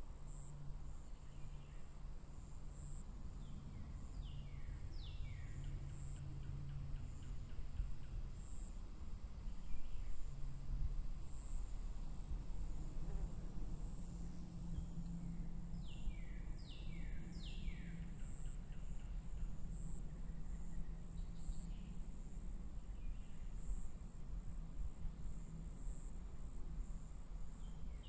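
Meadow ambience: a steady high-pitched insect stridulation with a faint pulsing. Over it, a bird calls three times, each call a quick run of three falling notes.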